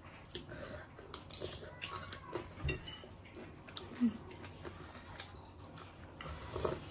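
Metal forks clinking and scraping on ceramic plates in scattered short clicks, with quiet chewing as two people eat.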